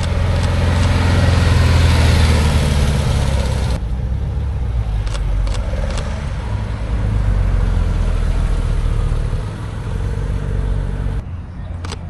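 Car engines driving past with a loud, low exhaust rumble that swells and fades twice. The sound changes abruptly about four seconds in and again near the end, as one passing car gives way to another.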